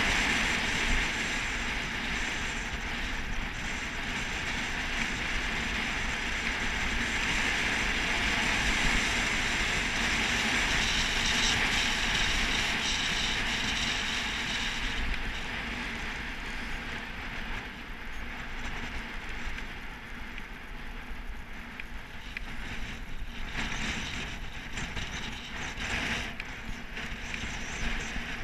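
Wind rushing over a helmet-mounted camera with road noise from a road bike in motion. The rush is loudest in the first half and eases after about fifteen seconds.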